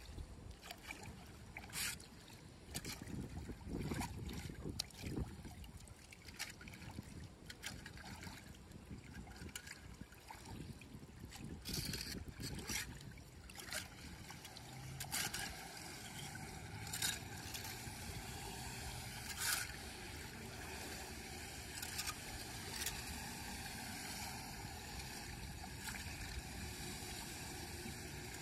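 A small 8-inch hand rake scraping wet leaves and muck off a storm drain, in a string of short, irregular scrapes, with water trickling into the drain. A steady low hum comes in about halfway through.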